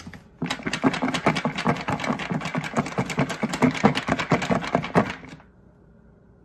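Chex cereal pieces rattling inside a lidded plastic container as it is shaken hard to coat them in powdered sugar: a fast, dense rattle that stops about five seconds in.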